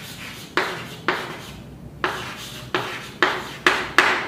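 Chalk writing on a chalkboard: a run of sharp taps and short scratchy strokes, about seven in all, the last few loudest, as a word is written out.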